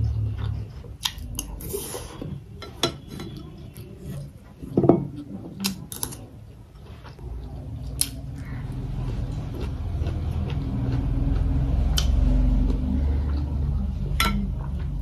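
Close-miked eating: a metal spoon clinks and scrapes against a porcelain bowl of rice in several sharp ticks, and then chewing and mouth sounds build up in the second half.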